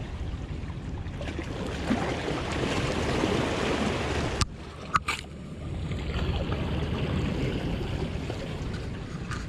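Steady rushing wind and water noise with a low hum, broken by two sharp clicks or knocks about halfway through.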